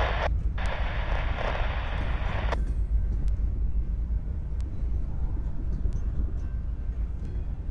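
Coal train of hopper cars rolling by with a steady low rumble and scattered faint clicks. A hiss above the rumble cuts off suddenly between two and three seconds in.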